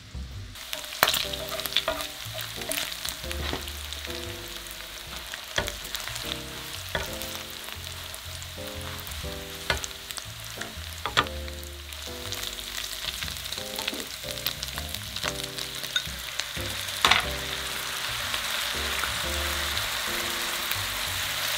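Thin-sliced pork belly and onion sizzling in a nonstick frying pan as the rendered fat is blotted up with a paper towel, with scattered clicks and scrapes of the utensil against the pan. The sizzle grows louder over the last few seconds.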